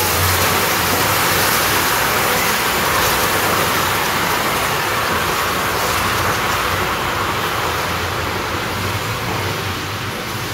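Caramel, thinned with hot water, boiling hard in a wok with a steady hiss and bubbling, slowly quietening. This is the stage of making a caramel sauce after hot water goes into the melted sugar.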